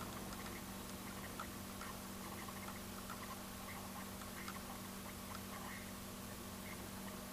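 Quiet room tone: a steady low hum with faint small clicks scattered irregularly through it.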